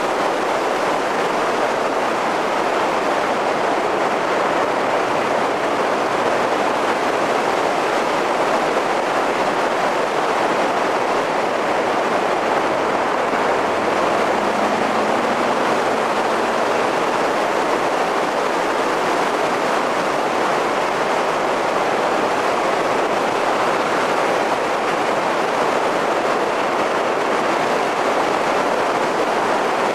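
Steady rush of wind and road noise on a roof-mounted camera's microphone as a car drives along a winding road, an even hiss-like roar with no clear engine note.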